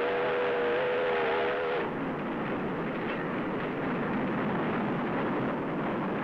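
Steady running noise of a train heard in an EF58 electric locomotive's cab. A held tone of several pitches together sounds over it and stops about two seconds in.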